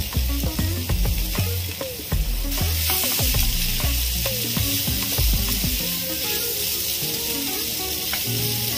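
Mashed boiled potato being stirred and scraped around a nonstick frying pan with a spatula, sizzling in hot spiced oil. The scraping strokes come thick and fast for the first six seconds or so and then thin out, and the sizzle grows a little brighter about two and a half seconds in.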